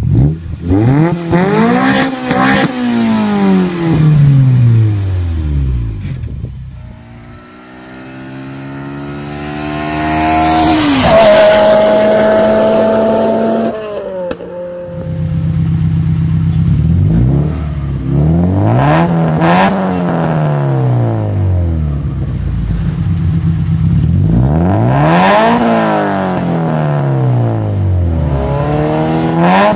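Honda Integra four-cylinder VTEC engines through loud exhausts, three cars in turn. First a parked Integra GS-R is free-revved in quick blips that rise and fall about every two seconds; then an Integra Type R accelerates hard toward and past, loudest about a third of the way in, its pitch falling after; from about halfway an Integra GSR is revved again and again in sharp blips about every three seconds.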